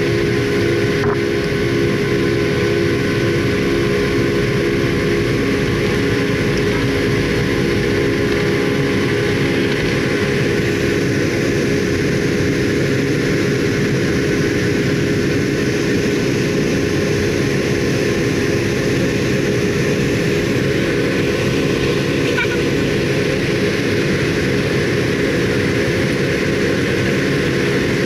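Boeing 757's turbofan engines at takeoff thrust, heard inside the cabin beside the wing: a steady, loud drone with a constant low hum, unchanged from the takeoff roll into the initial climb.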